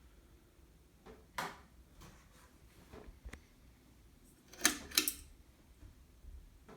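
Casablanca Century 9000 ceiling fan running quietly with a faint low hum. A few light clicks and knocks sound over it, the loudest a quick cluster of clicks about two-thirds through.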